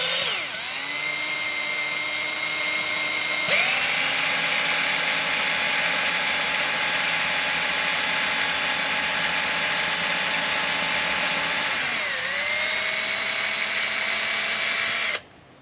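Electric drill drilling a screw hole through a plastic handle fitting and a wooden stick. The motor spins up, speeds up and gets louder about three and a half seconds in, dips and settles at a slightly lower pitch around twelve seconds, and stops just before the end.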